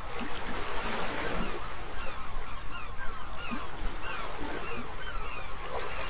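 A flock of gulls calling, many short overlapping cries repeated several times a second.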